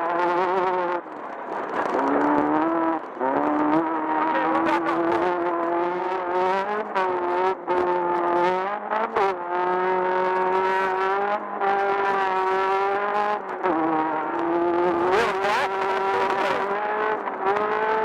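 Off-road race buggy's engine running hard under throttle, its pitch dipping and climbing back several times as the driver lifts off and gets back on the gas. Short knocks break in now and then.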